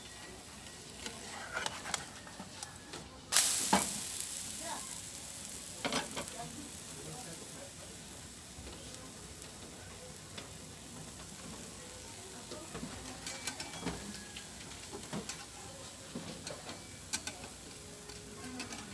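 Pancake sizzling in a hot non-stick frying pan as it is flipped with a slotted metal spatula: a sudden loud burst of sizzle about three seconds in that fades over the next few seconds, with scattered clicks and scrapes of the spatula against the pan.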